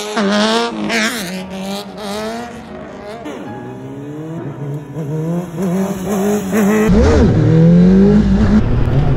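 Sportbike engine revving up and down while the motorcycle is held in a wheelie, its pitch rising and falling. About seven seconds in it cuts to a louder on-bike recording with wind rumble under the engine note.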